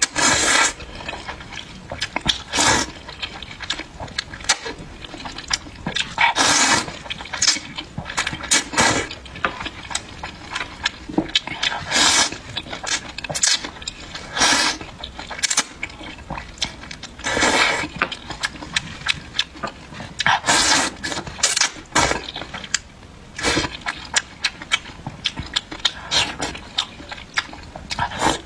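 Close-miked slurping and chewing of rice noodles in soup: loud wet slurps every one to three seconds, with smacking and chewing in between.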